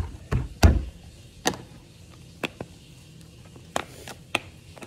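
Handling a tub of slime: two dull thumps in the first second as a hand presses into the slime in its plastic tub, then about half a dozen scattered sharp clicks as the slime and tub are worked.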